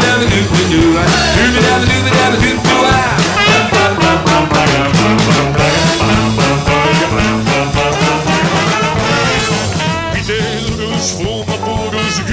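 Background music: an upbeat band song with a steady beat.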